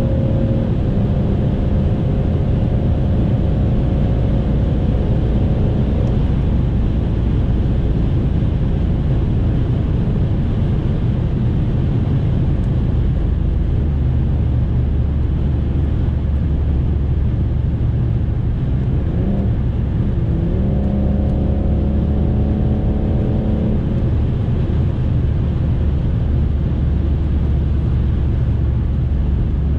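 Cabin sound of a BMW 640d's twin-turbo diesel straight-six at about 200 km/h on the motorway: a steady, loud low rumble of road and wind noise. Over it the engine's pitched drone comes up twice, for the first several seconds and again for about three seconds two-thirds of the way through.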